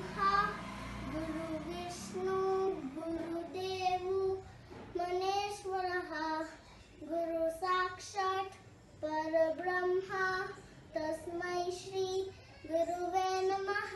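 A young girl singing solo, in short sung phrases with brief pauses between them.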